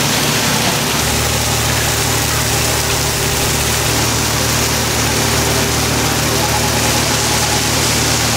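Steady loud roar of a hawker's gas wok burner, with a low machine-like hum underneath that shifts about a second in.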